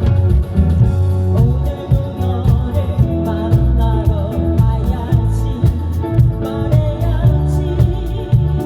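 Live rock band playing: drum kit keeping a steady beat under bass and electric guitar.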